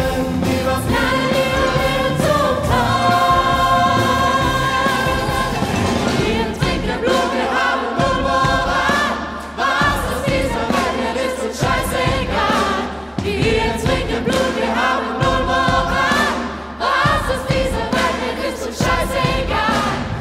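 Live symphony orchestra and choir playing film music, with a female soloist singing into a handheld microphone.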